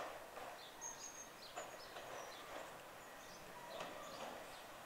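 Faint birds calling and chirping outdoors: short high whistles and scattered harsher calls at irregular intervals, over quiet background noise.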